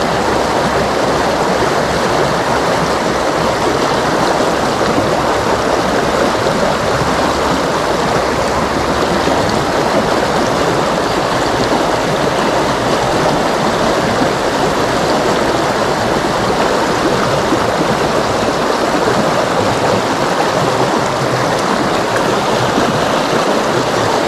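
Shallow rocky river rushing steadily over small rapids.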